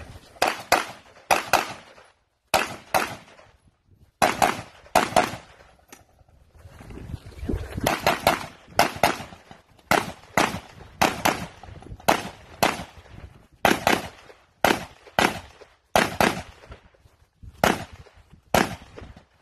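Gunfire from a shooter running a match stage: about thirty shots in strings of singles and quick pairs, roughly two a second, with brief pauses between strings. Each shot rings briefly.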